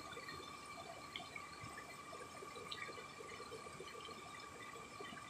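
Shallow river flowing over rocks, a steady low rushing of water, with a thin steady high-pitched tone running through it.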